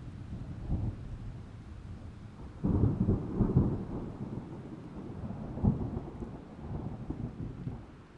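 Thunder rumbling over rain, with a sudden louder crack and roll about two and a half seconds in, another swell near six seconds, then dying away near the end.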